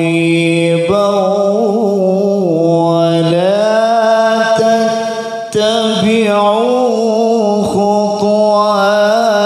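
A man reciting the Quran in the melodic tilawah style into a microphone, drawing out long, ornamented notes. He breaks off briefly about halfway through, then carries on.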